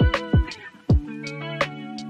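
Background music: a beat with drum hits under plucked guitar-like notes.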